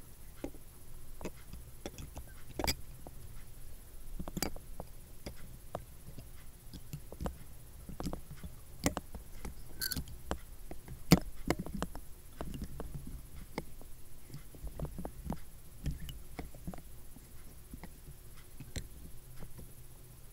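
Handling noise as a kaleidoscope is turned by hand close to the camera's microphone: irregular soft clicks and knocks over a low rumble, with one sharper knock about halfway through.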